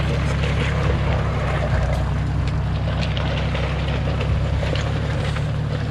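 Toyota Land Cruiser four-wheel drive driving off-road: a steady low engine drone with scattered clicks and knocks throughout.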